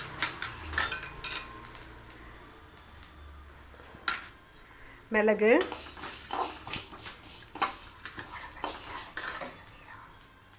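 A spoon or spatula scraping and clinking against a pan as whole dry spices are stirred while they roast. The strokes come irregularly and fade near the end.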